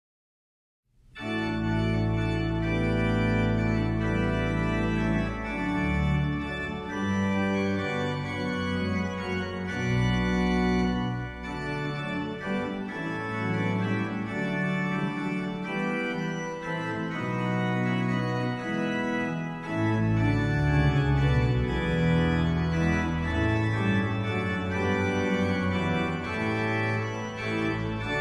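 Organ playing sustained chords over a deep bass line. It starts suddenly about a second in, after dead silence.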